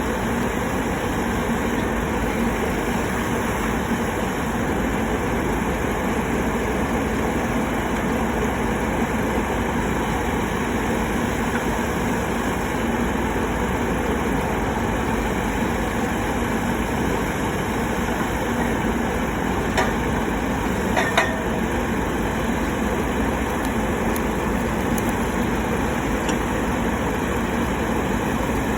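Solar pile driver's engine running steadily with an even hum, not hammering, with a couple of brief clicks about twenty seconds in.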